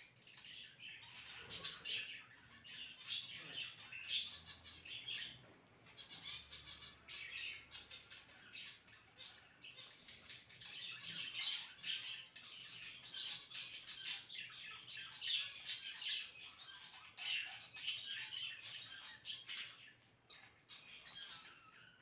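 Several budgerigars chattering, a continuous busy warble mixed with many short, sharp chirps, easing off briefly near the end.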